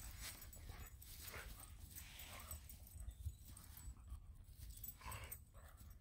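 A dog playing with a rope toy in grass: faint, irregular short breathy puffs and rustles as it mouths and shakes the toy.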